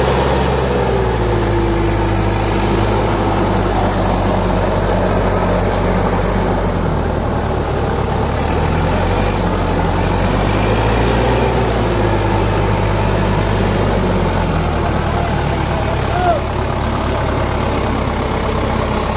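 HMT 5911 tractor's diesel engine running steadily under load as it pulls a heavily loaded sugarcane trailer at low speed, its pitch drifting slightly up and down.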